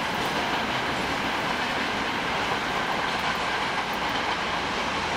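Freight train's wagons rolling away on the rails: the steady running noise of the wheels on the track.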